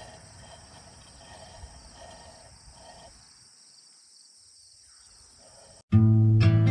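Faint, steady high-pitched chorus of crickets. About six seconds in it cuts off abruptly and loud acoustic guitar music starts.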